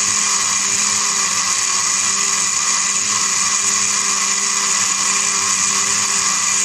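Electric blender running at a steady speed with a constant whine, grinding yogurt, green chillies and fried onions into a thick paste.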